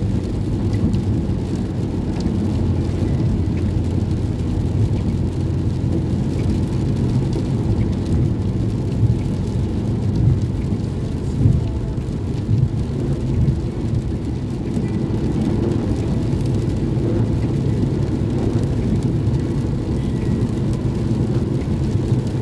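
Steady low rumble of a car driving on a rain-soaked freeway, heard from inside the cabin: tyres on wet pavement and rain on the car, with a few brief louder swells around the middle.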